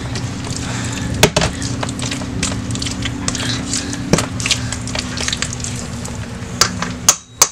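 Potato masher mashing tinned red beans in a stainless steel bowl: irregular squelching with knocks of the masher against the bowl, over a steady low hum that cuts off near the end, where sharper knocks begin.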